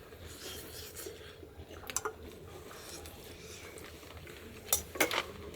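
Spoons and dishes clinking a few times during a meal: about two seconds in, then twice close together near the end, over a low steady hum.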